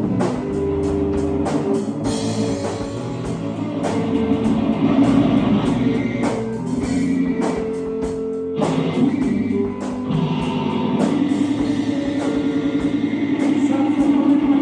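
Live rock band jamming: electric guitar over a drum kit, with a brief break just past the middle before the band comes back in.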